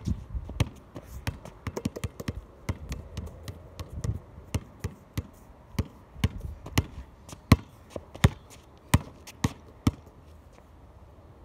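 Basketball dribbled on a concrete driveway: a steady run of sharp bounces, about two to three a second, that stops near the end.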